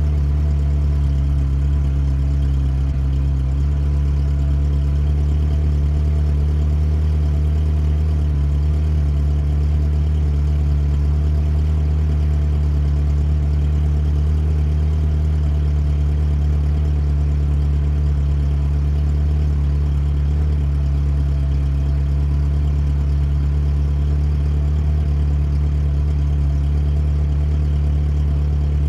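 Ferrari engine idling steadily with a deep, even note.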